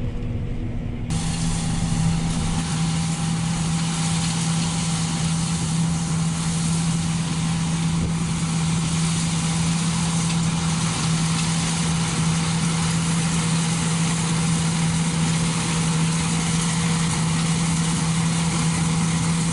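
John Deere T670i combine harvester running steadily while cutting barley: a constant engine and machinery hum with one strong steady tone under a dense hiss. About a second in the sound changes abruptly as the hiss fills in, then holds level.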